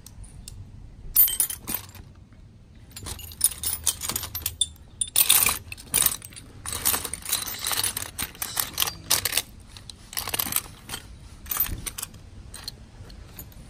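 Metal hand tools (sockets, wrenches, ratchet extensions) clinking and jangling against each other as a hand rummages through a soft tool bag, in irregular bursts.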